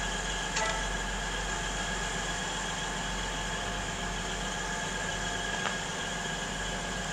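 East Midlands Railway Class 180 diesel multiple unit idling at the platform: a steady engine hum with several whining tones.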